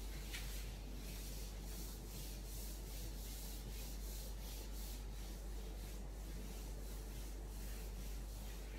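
Whiteboard duster rubbing across a whiteboard in quick repeated strokes, wiping off marker writing, over a steady low hum.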